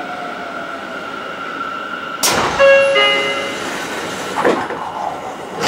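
A Seibu 6000 series train's passenger doors closing at a station stop: a rush of noise as the door mechanism starts about two seconds in, a two-note door chime just after, and the doors sliding shut with a loud thud near the end.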